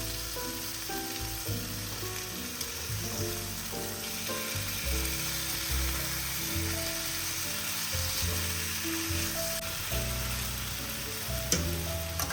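Food sizzling and frying in a pan, a steady hiss under soft background music, with a single sharp tap near the end.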